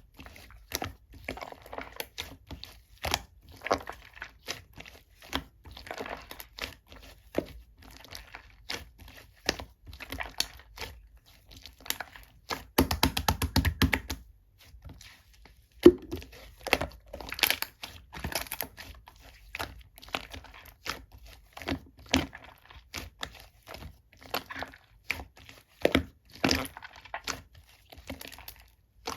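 Ice whipped-cream slime being squeezed, poked and stretched by hand, giving irregular crackling clicks and pops. About thirteen seconds in comes a quick burst of rapid popping.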